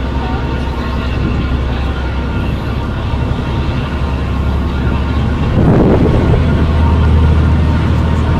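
Ferry engine droning steadily underway, a low hum with an even pitch. A short rush of noise comes a little past halfway, and after it the drone runs a bit louder.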